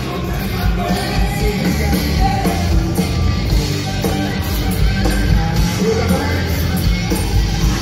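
Live band playing rock-funk: electric guitars, bass, drum kit and congas, with a singer's voice over it.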